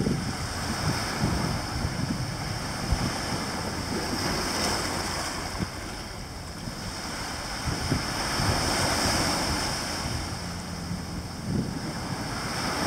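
Small waves washing up and back on a sandy beach, a steady surf wash that swells and eases, with wind buffeting the microphone in low gusts.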